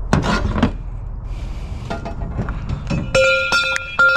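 Pieces of scrap metal clinking together, with a few sharp strikes near the end that leave the metal ringing.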